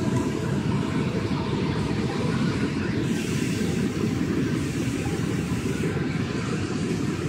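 Steady low rumbling background noise outdoors, even throughout, with no distinct events standing out.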